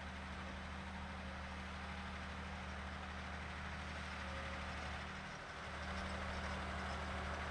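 Valtra T214 tractor's diesel engine running steadily while ploughing. There is a brief dip about five seconds in, after which it runs slightly louder.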